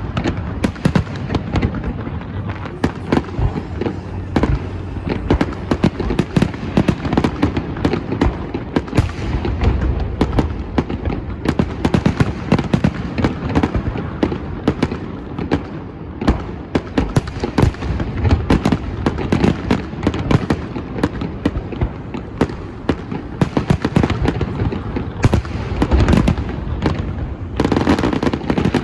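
Fireworks display: a dense, continuous barrage of booming shell bursts and crackling, many bangs a second with no let-up.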